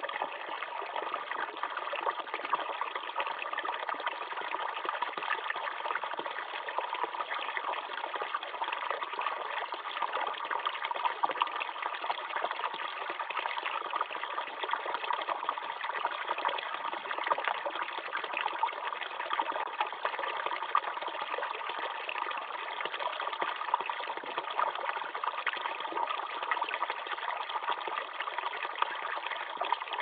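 A stream of water pouring from a pipe and splashing into a shallow pool below: a steady gush with small splashes.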